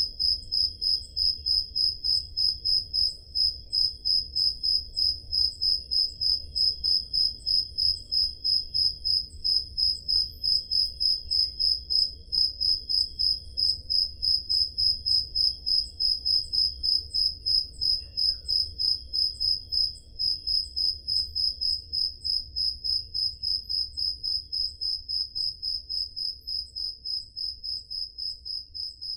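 Crickets chirping: one loud cricket repeats a high, even chirp about three times a second, with a fainter cricket chirping at a lower pitch behind it.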